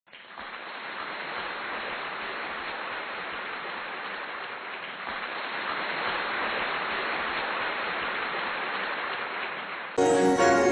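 A steady rushing noise that fades in at the start and cuts off suddenly near the end, when music with chiming, bell-like notes begins.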